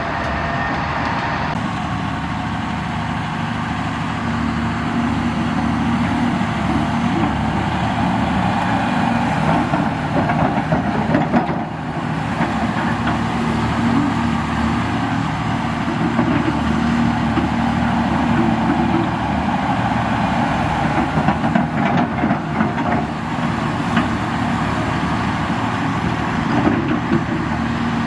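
Heavy diesel engines of earthmoving machinery and trucks running steadily, with a few short knocks about halfway through and again near the end.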